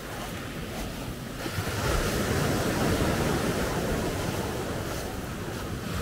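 Small Black Sea waves breaking and washing up a pebble beach, one wave surging in louder about two seconds in and then easing off. Wind buffets the microphone with a low rumble.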